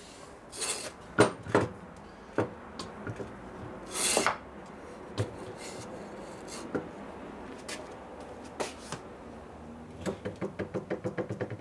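Metal engine and transmission cases knocking and sliding on a steel workbench as a wooden block is worked under one to level it. There are scattered clunks, a scrape about four seconds in, and a quick run of ticks near the end.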